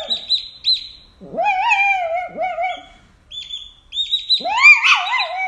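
An animal making two long, wavering calls, one beginning about a second in and one near the end, with short high chirps between them.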